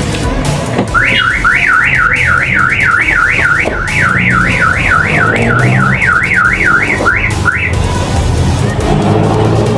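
Newly installed aftermarket car alarm siren on a Hyundai Starex sounding a fast warbling wail that sweeps up and down about three times a second. It starts about a second in and cuts off abruptly near the end.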